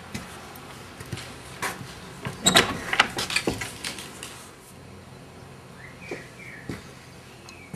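A glass-paned wooden door being opened: scattered knocks, then a rattling clatter of knocks about two to three and a half seconds in. A few short, high falling chirps come near the end.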